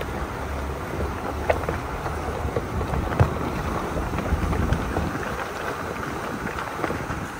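Jeep Wrangler's tyres rolling over loose rock and gravel, with stones crunching and popping under the tread, the loudest pop about three seconds in. Under it is a low engine and drivetrain rumble and wind buffeting the microphone.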